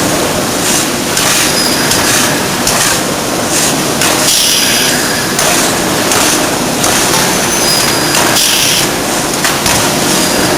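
Ring rolling mill running: a steady loud mechanical noise with high metallic squeals that come and go every second or two.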